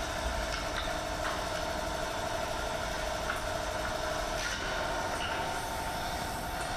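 Leather printing press running: a steady mechanical hum with a held tone and a few faint clicks.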